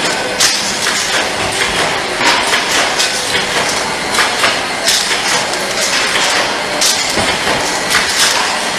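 Machinery running with a steady noise and an irregular clatter of sharp clicks and knocks, several a second.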